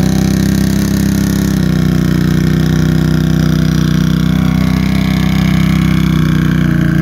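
Can-Am ATV's V-twin engine held steady at high revs as its big mud tires spin and churn through sticky clay mud.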